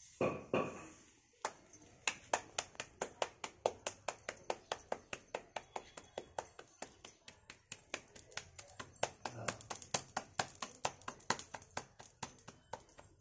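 Wheat roti dough being slapped between bare palms to shape it by hand, a steady patter of about three soft claps a second.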